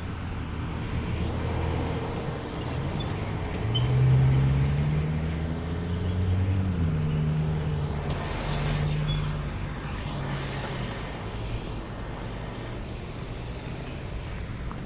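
A motor vehicle's engine passes close by, growing louder then dropping in pitch as it goes by and fades. Steady outdoor rumble underneath, with a brief hiss partway through.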